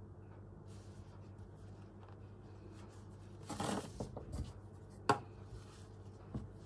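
Hand stitching: needle and thread drawn through fabric, with soft scratching and rustling, a louder rustle about three and a half seconds in and a sharp click about five seconds in, over a steady low hum.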